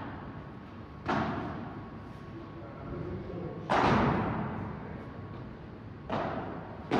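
Padel ball being hit back and forth in a rally: four sharp hits a second to two and a half seconds apart, the loudest near the middle, each ringing on in the echoing hall.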